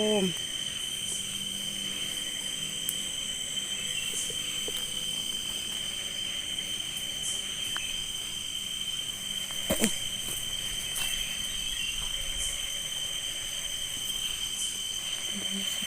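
Crickets and other insects chirring steadily in a continuous high-pitched drone, with a single sharp click about ten seconds in.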